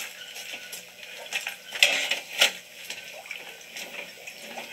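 Water splashing and sloshing in an open spearing hole in the ice, with a few sharper splashes about two seconds in.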